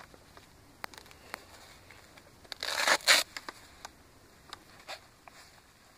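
Rustling and scattered light clicks of a motocross chest protector being pulled over the head and settled onto the shoulders. A louder scraping rustle comes about three seconds in.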